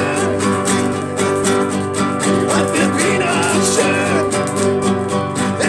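Song music: strummed acoustic guitar chords over a steady beat, with a wavering melody line over the top in the middle.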